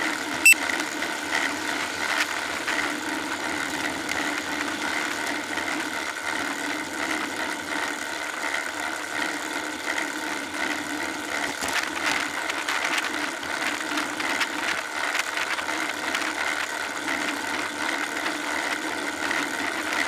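Steady riding noise picked up by a seatpost-mounted rear bike camera: road vibration and a rattle of the mount with many small ticks, and one sharp knock about half a second in.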